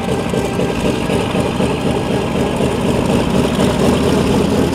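Grumman F4F-3 Wildcat's Pratt & Whitney R-1830 Twin Wasp radial engine running steadily at taxi power, loud and even.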